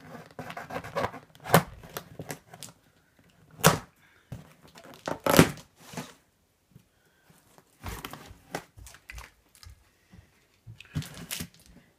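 Plastic packing straps being cut and pulled off a cardboard box: several sharp snaps and knocks, the loudest about five seconds in, with rustling and scraping of strap against cardboard between them.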